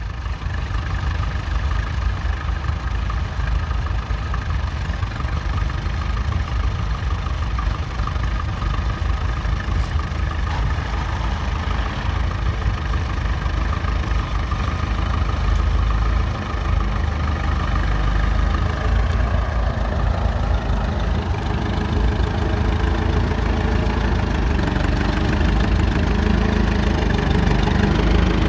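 Fordson Model N tractor's four-cylinder side-valve engine running steadily with a deep, even beat; its note changes about two-thirds of the way through and grows a little louder near the end.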